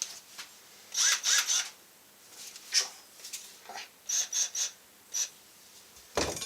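Plastic switch and button clicks from handling a cordless power tool, coming singly and in quick groups of three. Near the end there is a sharper, louder knock.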